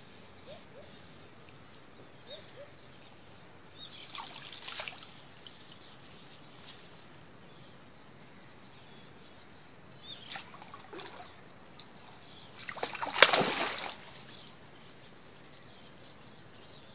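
Water splashing and sloshing in the river shallows as a hooked wallago catfish is hauled in on a set line. Three bouts of splashing, the last one loudest, with a sharp slap about thirteen seconds in.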